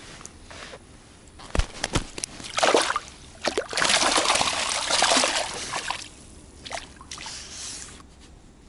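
Water splashing and sloshing as a fish is put into a wire-mesh keepnet at the water's edge, after two knocks about a second and a half in. The splashing is loudest for a few seconds in the middle, then dies down.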